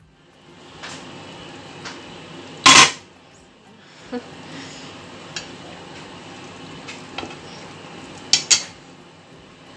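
Stainless steel cooking pot and utensils clanking: one loud metallic knock about three seconds in, two more in quick succession near the end, and a few light taps, over a steady hiss from the pot on the stove.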